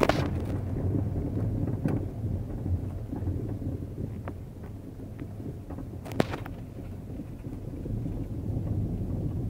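Low rumble of wind buffeting a phone's microphone, with a few sharp clicks as the phone is handled: one at the start, one about two seconds in and one about six seconds in.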